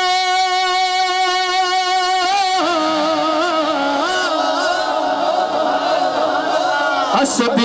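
A man singing a devotional kalam through a microphone and loudspeaker: one long held note for about the first two and a half seconds, then a wavering, ornamented melody.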